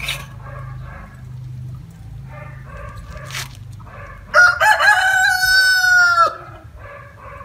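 A rooster crows once, loud, for about two seconds a little over four seconds in, the call dropping in pitch at its end.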